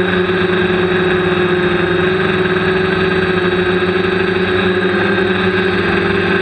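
DJI quadcopter's electric motors and propellers running steadily in flight, heard from on board: a loud, even hum with a few steady tones that drift slightly in pitch.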